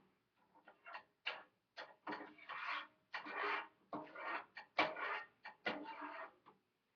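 Irregular scraping and scratching strokes of a kitchen utensil working against a pan or bowl, some drawn out for about half a second and others quick and clipped.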